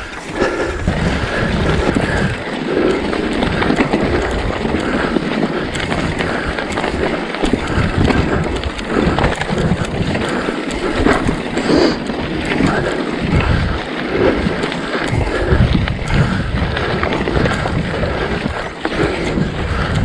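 Mountain bike riding over rough singletrack: tyres rumbling and the bike rattling and knocking over bumps, with wind buffeting the microphone.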